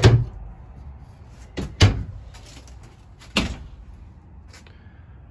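Travel-trailer cabinet and closet doors being shut: three sharp knocks about a second and a half apart, the last one softer, and a faint fourth tap near the end.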